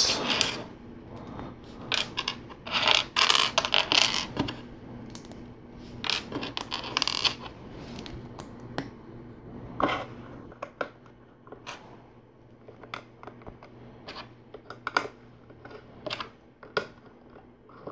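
Plastic LEGO pieces clattering and clicking as they are picked out and pressed onto a build. There is denser clatter in the first half, then a string of separate sharp clicks.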